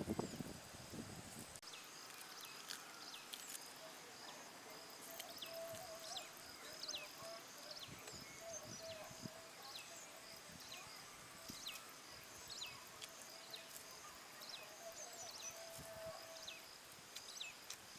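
Rural outdoor ambience: many short, high chirps falling in pitch, about two a second, over a steady high drone, with a faint wavering call lower down through the middle. A few soft knocks in the first second and a half.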